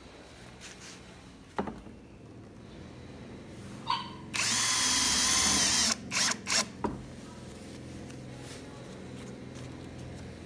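Brushless 20 V cordless drill driver driving a screw into the metal edge of a solar panel. There is a sharp click about a second and a half in and a brief whir near four seconds. Then the drill runs steadily under load for about a second and a half, followed by three short trigger blips.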